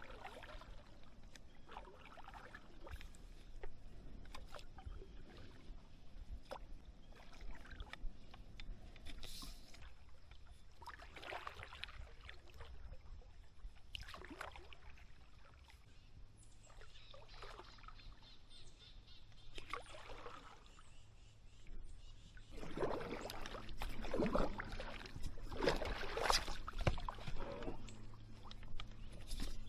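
Paddle strokes in shallow creek water, each dip and pull a short splash every few seconds. For the last several seconds the splashing comes louder and closer together.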